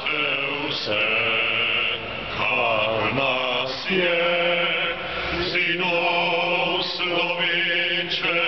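Slow singing by voices, a melody of long held notes that change pitch about once a second.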